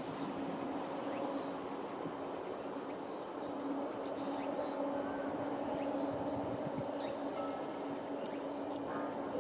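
Outdoor insects, crickets, chirping in short high-pitched pulses about once a second, over a faint steady hum.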